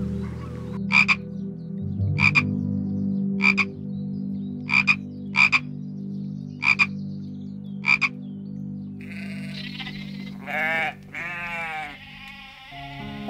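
A frog croaking in short, sharp calls, about eight of them a second or so apart, two of them in a quick pair. Then, near the end, sheep bleating with a few wavering bleats.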